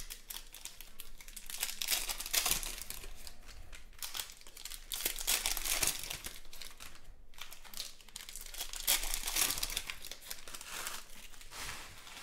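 Foil wrapper of a 2020 Panini Prizm football card pack crinkling and tearing as it is ripped open by hand, in several bursts with a short lull about halfway.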